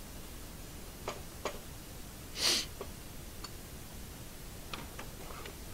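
Faint, scattered clicks and taps of metal parts being handled on a hydraulic floor jack being taken apart, with one short breathy hiss about halfway through.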